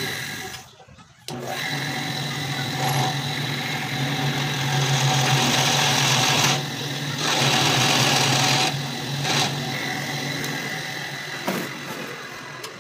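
Bench drill press running, its bit boring into a hard ebony block. The motor hum cuts out briefly and comes back abruptly about a second in, the cutting noise grows louder in two spells in the middle as the bit is fed into the wood, and it dies away near the end.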